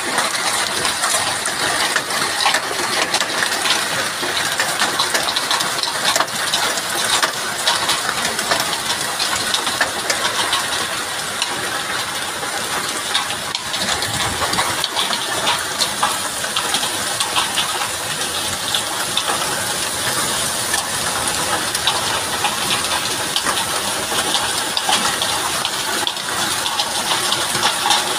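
Hailstorm: a dense, steady clatter of countless wind-driven hailstones striking the ground, plants and an above-ground pool.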